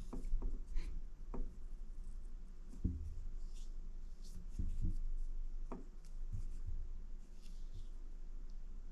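Hands working fly line and backing while tightening and sliding a nail knot: soft rubbing with scattered small taps and clicks.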